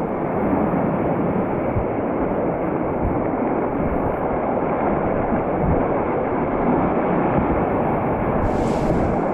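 Steady, muffled rush of whitewater rapids around a kayak, with a low uneven rumble underneath.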